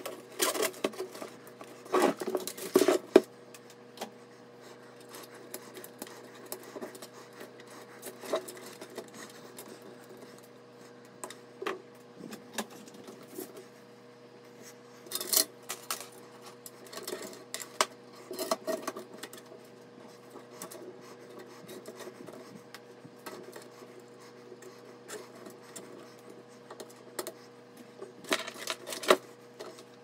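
Hands routing cables through a steel PC case: scattered rubbing, scraping and clicks of cables and connectors against the metal panels, loudest in a cluster two to three seconds in and again near the end. A faint steady hum runs underneath.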